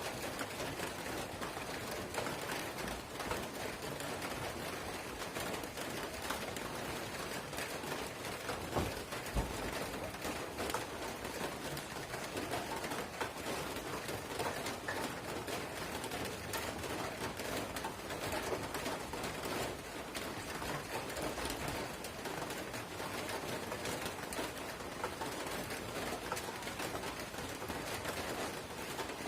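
Light drizzle falling steadily: a fine, even hiss of small raindrops with many tiny ticks.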